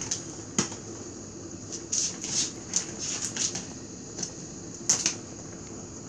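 Plastic dry cat food bag crinkling and rustling in short, irregular bursts as a cat pushes its head into it, loudest about two seconds in and again near the end.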